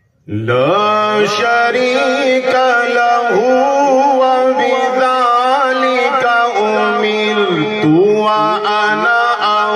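A man reciting the Quran in the melodic, drawn-out tilawat style into a microphone. The voice comes in just after a moment of silence and holds long notes, bending and trilling between them without a break.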